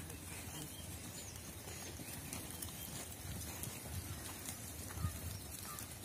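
Outdoor ambience around a grazing flock of sheep and goats: a low, uneven rumble with faint animal sounds and no clear calls, and a single short knock about five seconds in.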